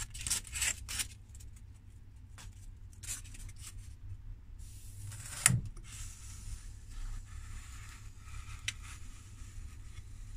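Hands handling and rubbing blocks of polystyrene foam on a work table: short scraping rustles, with one sharp knock about five and a half seconds in.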